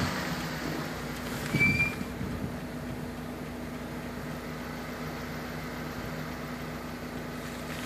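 Car engine idling steadily while stopped, a low even hum. A brief high chirp comes about a second and a half in.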